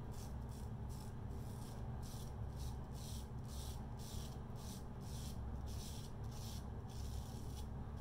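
GEM Pushbutton single-edge safety razor scraping through lathered stubble on the neck in short, repeated strokes, about two or three a second.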